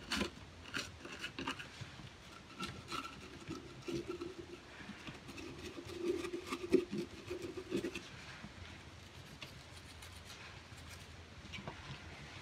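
Toothbrush scrubbing the stainless steel barrel of a Bond Arms derringer around the extractor: faint, irregular brushing strokes and light clicks, dying down over the last few seconds.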